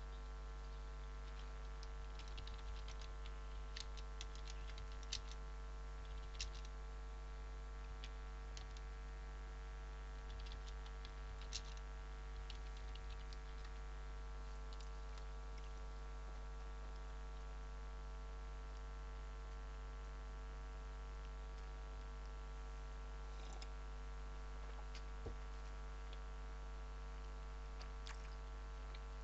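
Steady electrical-sounding hum with scattered faint clicks, most of them in the first half and a few more near the end.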